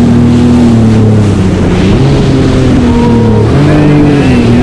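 Jet ski engine running at speed, its pitch dipping and rising a few times as the throttle changes. Spray rushes and wind blows on the microphone throughout.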